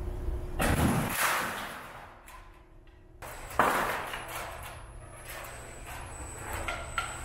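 Slit sheet-metal strips rattling and scraping as they run through a coil slitter and powered recoiler, over a steady machine hum. A sudden loud metallic clatter comes about halfway through, and a thin high steady whine sets in near the end.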